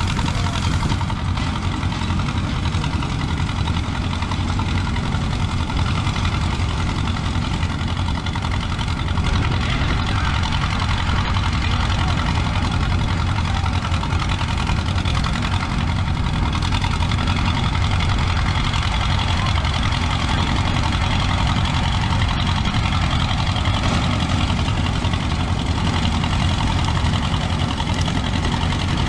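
Vintage Allis-Chalmers tractor and pull-type combine running steadily as they work through a windrow of grain: a continuous low engine rumble with machinery noise over it.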